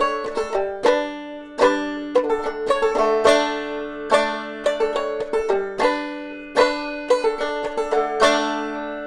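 Open-back banjo played clawhammer style: a steady run of picked notes with a strong accented strike about every second, the strings ringing between strikes.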